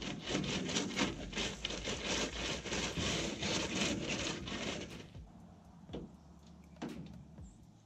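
Rapid, rough scraping of wood being rubbed, in quick repeated strokes; it stops about five seconds in, followed by two light knocks.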